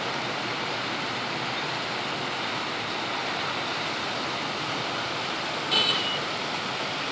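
Steady hiss of rain, with a brief high-pitched chirp about five and a half seconds in.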